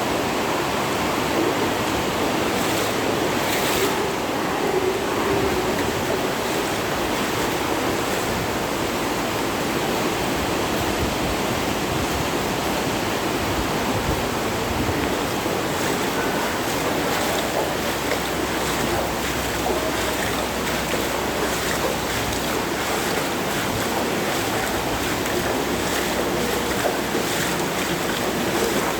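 Steady rushing noise of flood water, even and unbroken, with no pauses or changes.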